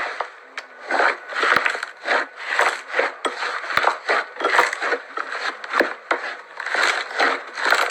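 Slime being squeezed and kneaded by hand, making repeated squishy, crackling pops about twice a second.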